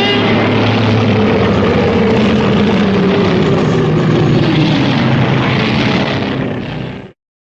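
A Shin Godzilla sound effect: a single loud, harsh, noisy cry lasting about seven seconds, with low pitched tones that slowly sag. It cuts off abruptly near the end.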